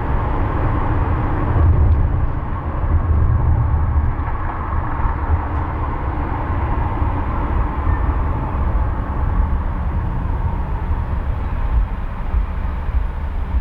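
A car driving on city roads: a steady low rumble of road and engine noise, without sudden events.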